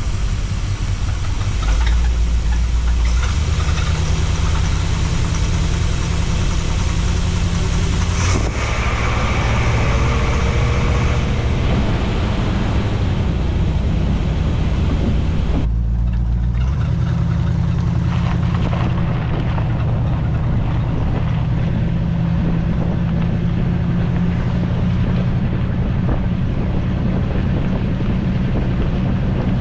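Chevrolet small-block 350 V8 running steadily at idle. The sound breaks off abruptly about 16 seconds in and carries on with a slightly different note.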